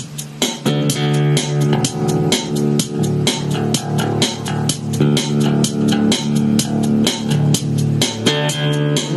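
Background rock music with electric guitar, bass guitar and a drum kit keeping a steady beat; the full band comes in about half a second in.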